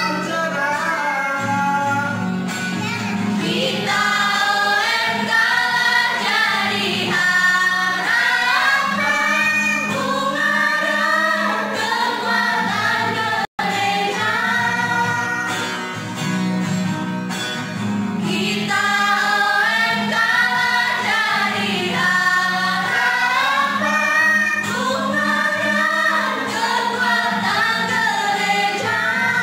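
Youth choir singing a church hymn together, mostly young women's voices. The sound drops out for a split second about halfway through.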